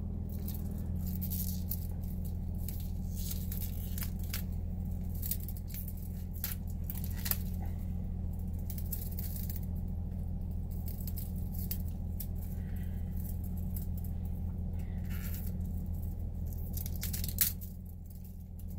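Lightweight metal watch bracelet and clasp being handled, its links rattling and clicking irregularly, with one sharper click near the end, over a steady low hum. The thin, loose links make the bracelet rattly and noisy.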